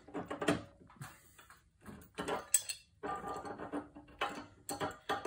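Pipe wrench working a threaded metal pipe fitting clamped in a bench vise: a string of irregular metallic knocks, scrapes and brief creaks as the wrench is pulled and reset on the fitting to tighten the threads.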